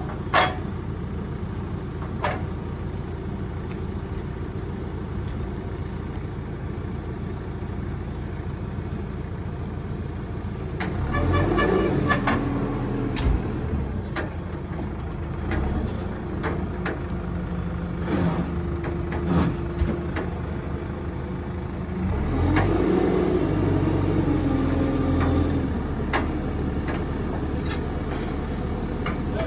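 Telescopic handler's engine running steadily, revving up twice, about eleven seconds in and again about twenty-two seconds in, as it works the lift. Scattered sharp clicks and knocks, the loudest one right at the start.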